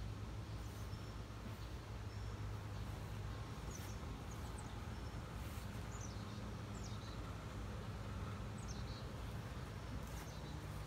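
Birds chirping now and then, a handful of short, high, falling chirps, over a steady low hum.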